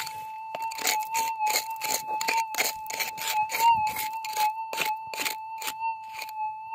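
A hand pick striking and raking into loose creek gravel about three times a second, each stroke a sharp crunch, over a metal detector's steady high tone that wavers slightly.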